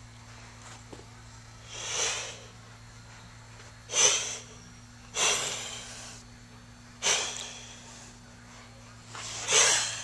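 A kitten hissing five times in short breathy bursts, several starting abruptly: a defensive warning.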